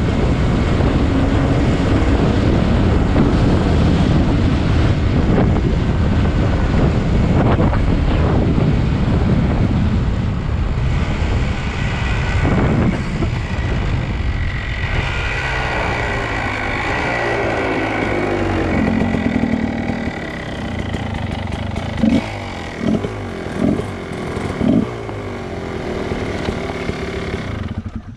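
Dirt bike engine running under way on a paved road, with wind rushing over a helmet-mounted microphone. In the second half the engine note shifts as the bike slows, and about three-quarters of the way through there are four short louder bursts of revving.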